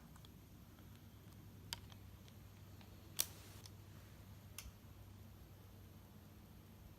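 Three sharp clicks, the loudest about three seconds in, as the Casablanca Constellation ceiling fan's reverse control in its panel is worked, over a faint steady hum from the fan.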